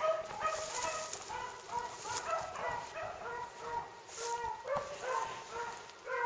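A pack of beagles baying as they run a trail: many short, overlapping calls at different pitches from several hounds at once.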